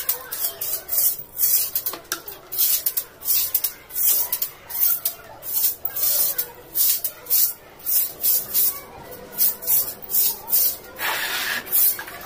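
Stiff stick broom sweeping a tiled floor in quick, short strokes, a little over two a second, the bristles scratching across the tiles. About eleven seconds in there is one longer, fuller stroke.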